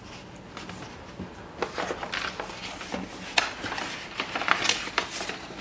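Hands handling a cardboard box and its contents: irregular rustling and scraping that starts about a second and a half in, with one sharp tap or click partway through.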